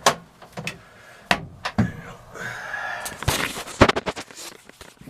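Plastic snowmobile side hood being handled: a series of sharp knocks and clacks, with a short scraping rustle around the middle.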